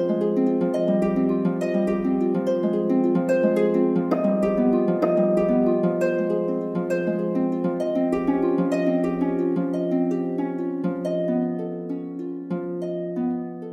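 Background music: a quick, flowing run of plucked string notes in a harp-like sound, getting quieter over the last few seconds.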